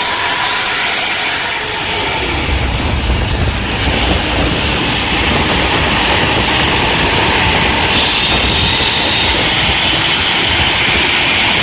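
Mercedes-Benz-chassis bus's exhaust and engine running under way, a loud, steady rushing with a deep rumble beneath: the whooshing 'suuooosss' exhaust note. The hiss grows louder about eight seconds in.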